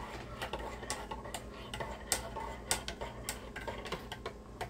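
A run of light, sharp clicks and taps, several a second at uneven spacing, over a faint low steady hum.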